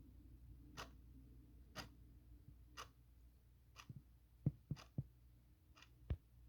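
Clock ticking about once a second. Past the middle, a few louder, deeper knocks fall between the ticks at uneven times, the loudest about four and a half seconds in.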